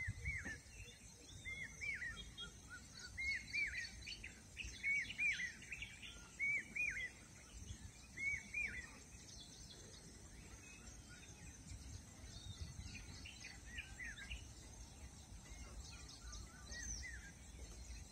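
A bird repeating a short, arched chirp about once a second, clearer for the first nine seconds and fainter and sparser after, over a faint low rumble.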